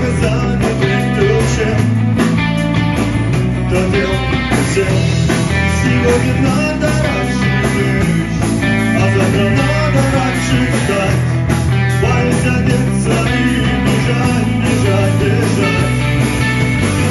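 Rock band playing live: electric guitar, bass guitar and drums, loud and steady.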